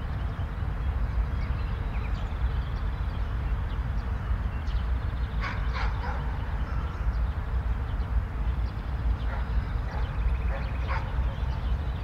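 Outdoor ambience with a steady low rumble and a few short, sharp animal calls: a quick cluster a little past the middle and a few more near the end.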